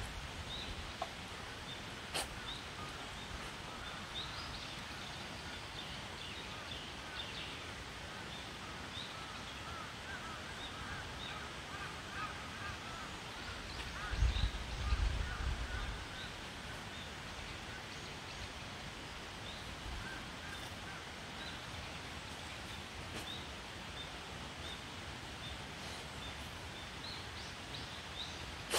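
Outdoor rural ambience with birds chirping in the background, short scattered calls throughout, and a brief low rumble about halfway through.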